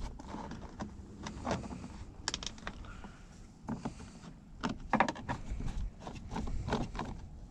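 Irregular light clicks and taps of a screwdriver and small parts being handled while the two screws holding a car door speaker are taken out.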